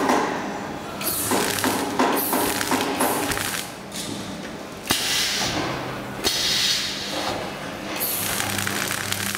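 Plastic shrink film rustling in repeated bursts of a second or so as it is handled and pulled through the film rollers of an L-bar shrink-wrap sealer, over a low steady hum.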